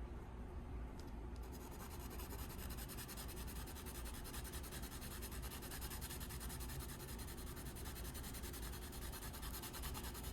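A soft 6B graphite pencil shading on paper: a faint, steady scratching of the lead across the page.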